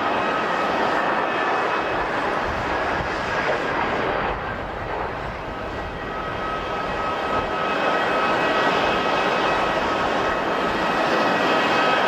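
Jet airliner engines running loud, a rushing roar with a steady high whine over it, easing slightly about four seconds in and then building again.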